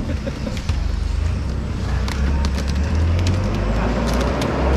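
Stacked plastic baskets clacking and knocking as they are pulled apart and set down, a series of sharp separate knocks, over a steady low engine rumble from vehicles.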